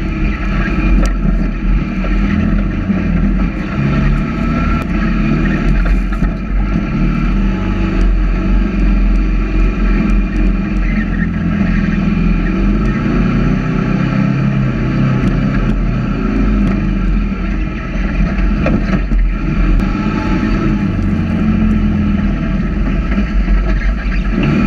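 Sand rail engine running under way over sand, a steady drone whose pitch wavers up and down as the throttle changes.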